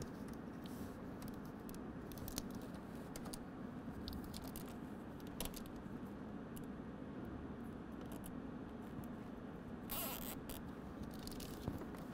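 Faint scraping, rustling and small clicks of a wiring harness being handled and pressed into place along the plastic cowl of a truck's engine bay, with a short scratchy burst about ten seconds in, over a steady low background hum.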